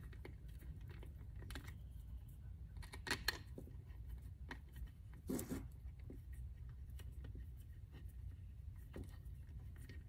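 Light clicks and taps of a metal Allen key turning small bolts in acrylic and plastic nest parts, with a couple of sharper clicks about three seconds in and a slightly longer knock a little past five seconds, over a low steady hum.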